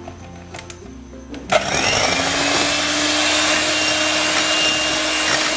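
Electric hand mixer switched on about a second and a half in with a click, its motor spinning up with a short rising whine and then running steadily as the beaters whip eggs and sugar into a thick foam. Quiet background music plays underneath.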